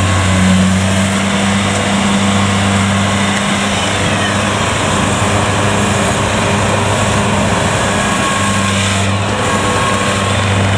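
Kubota DC-70 Plus combine harvester's diesel engine running at working speed while the machine cuts rice, its header, threshing drum and crawler tracks all going: a loud, steady mechanical drone with a low engine hum.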